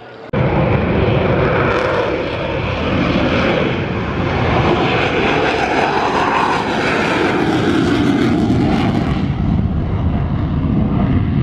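Airplane engine noise, loud and steady, with a whoosh whose pitch shifts slowly as the aircraft moves; it starts and stops abruptly.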